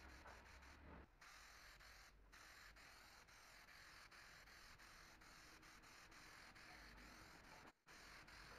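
Near silence: faint steady room hiss, with a few brief dropouts.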